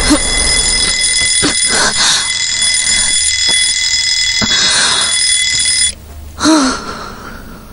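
Alarm clock ringing with a steady, high, multi-tone electronic ring that cuts off about six seconds in. A woman gives a short sleepy groan just after.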